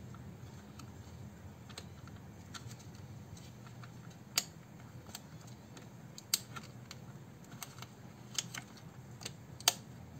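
Scattered light plastic clicks and taps from handling the parts of an opened computer keyboard, irregular, with a few sharper clicks around four, six, eight and a half and nearly ten seconds in, over a faint low hum.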